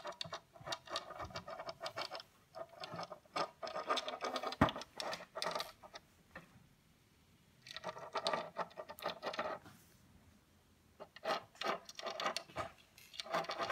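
Wooden chess piece sliding and scraping across a wooden chessboard in three rough, crackly stretches with short pauses between them, with one sharp click about four and a half seconds in.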